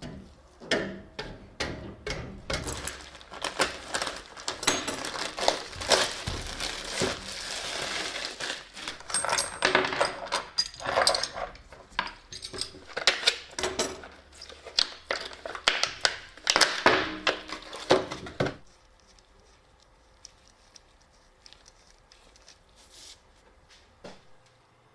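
Handling noise: a dense run of small clinks, knocks and crinkling that stops suddenly about eighteen seconds in.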